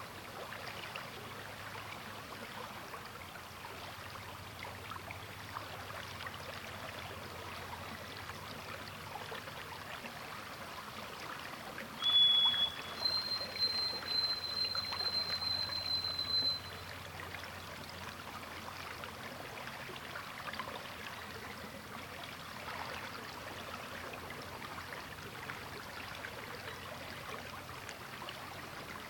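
Sturgeon River water flowing and trickling steadily over its bed. About twelve seconds in, a high thin whistle cuts in, first a short lower note and then a longer, higher one held for about three and a half seconds; it is the loudest sound.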